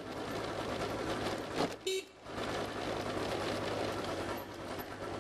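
A scooter's engine runs under a steady noise of wind and traffic, with a brief vehicle horn toot about two seconds in.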